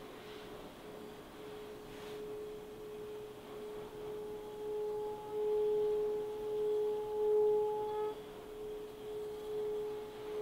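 Hand-held brass singing bowl sung by rubbing a wooden mallet around its rim: one steady ringing tone that swells slowly and wavers in loudness, with a higher overtone joining about four seconds in and dropping out near eight seconds.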